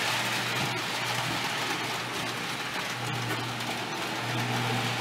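Marx Trains O-27 tinplate electric toy train running on three-rail track: a steady hiss of wheels on the rails with a low electric hum that swells and fades as it goes.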